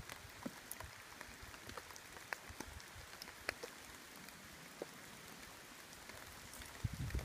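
Steady rain falling, a soft even hiss with scattered individual drops ticking close by. A brief low rumble comes near the end.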